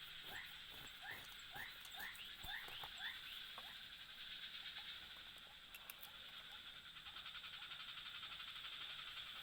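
Steady, pulsing chorus of night insects such as crickets, with a frog giving a run of short rising calls about twice a second over the first three seconds.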